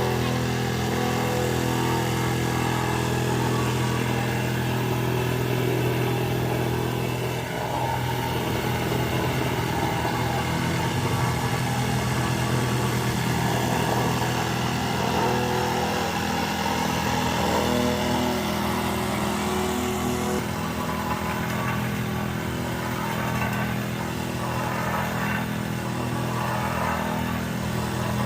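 An engine running steadily at an even speed, with small shifts in its sound about twenty seconds in.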